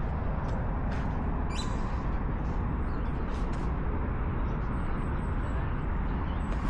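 Steady outdoor city background noise with a low rumble like distant traffic, and a few faint clicks.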